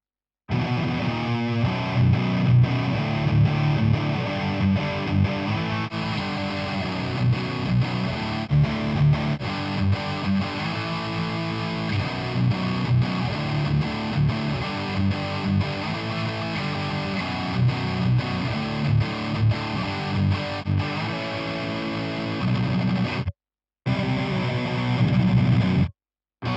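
Heavy distorted electric guitar rhythm riff played through the Brainworx Diezel VH4 amp-simulator plugin on its high-gain channel 4. The sound cuts out briefly just after the start and twice near the end.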